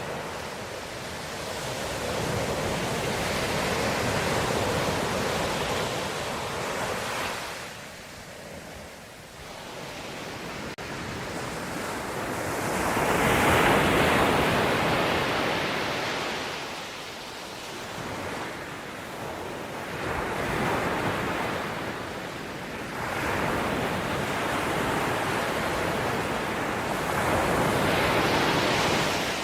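Ocean waves breaking and washing onto the shore, the surf rising and falling in long swells, the loudest about halfway through, with some wind on the microphone.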